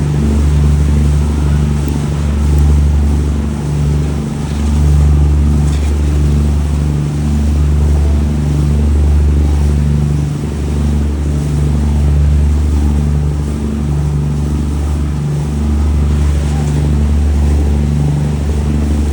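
Boat engine running steadily under way, a loud, low drone with small swells in level.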